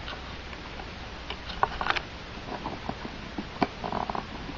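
Fingers scratching and picking at the tape seal on a cardboard box: scattered small clicks, taps and scrapes, the sharpest about one and a half, two and three and a half seconds in.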